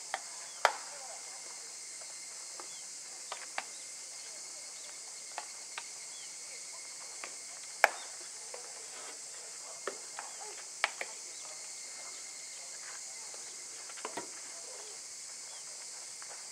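Steady high drone of summer insects, with about a dozen scattered sharp knocks, the loudest about eight seconds in, and faint distant voices.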